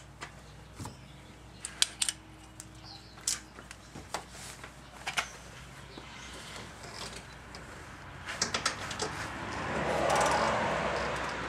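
Scattered small metallic clicks and clinks of hand tools being handled, a socket wrench and extension being fitted. Near the end a rustling swell as a cotton shirt brushes against the microphone.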